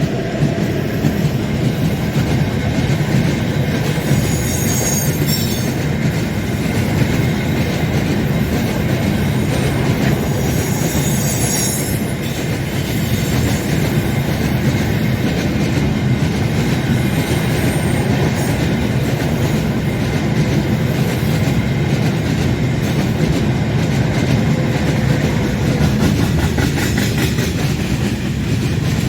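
Loaded freight train rolling past with a steady rumble of wagon wheels on the rails, and brief high-pitched wheel squeals twice in the first half as the wagons come off the curve.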